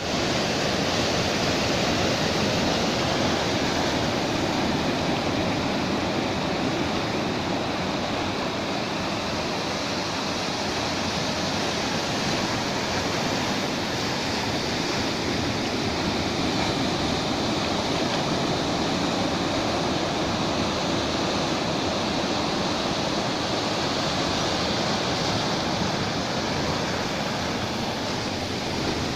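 Sea waves breaking and washing up a beach in a continuous roar of surf, swelling and easing gently.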